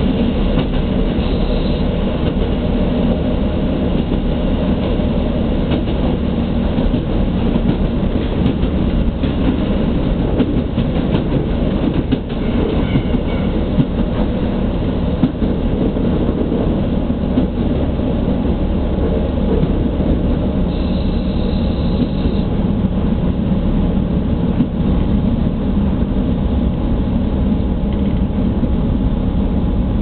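Steady running noise heard from inside a diesel train on the Sekihoku Main Line: engine drone and wheels running on the rails. A short high tone comes in about two-thirds of the way through.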